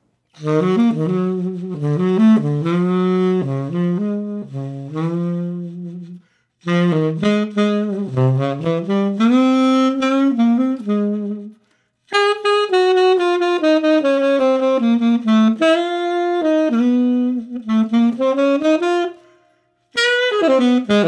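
Unaccompanied tenor saxophone with an Otto Link mouthpiece playing a ballad melody in three phrases with short breath pauses between them, a fourth phrase beginning near the end.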